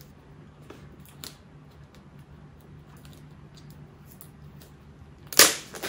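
Plastic packaging being picked and pulled at by hand, with faint rustles and small ticks, then a short, sharp rip about five seconds in as it tears open.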